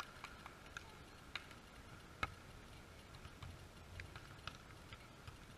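Scattered sharp slaps of hands and forearms striking a beach volleyball during a rally, the loudest a little over two seconds in, over a faint, steady outdoor background.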